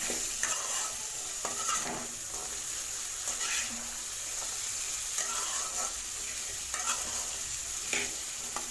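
Diced potato and carrot sizzling in hot oil in a kadai while a metal spatula stirs and tosses them, scraping the pan at irregular intervals.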